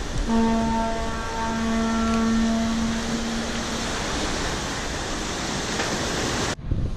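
Steady rush of wind and surf, with a single-pitched horn sounding for about three and a half seconds, briefly dipping about a second in. The rush breaks off abruptly near the end.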